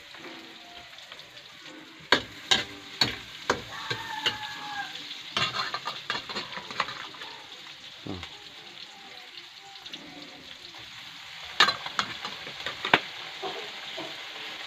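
Meat sizzling and frying in a wok over a wood fire, with a metal spatula stirring and scraping against the pan. Sharp metal knocks and clanks come in clusters, a few seconds in, around the middle and near the end.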